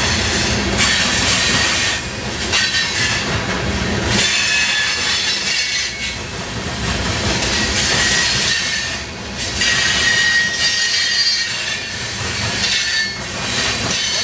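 Freight train of CSX open-top hopper cars rolling past: a steady rumble of steel wheels on rail with faint high wheel squeal, the level rising and falling every few seconds as the cars go by.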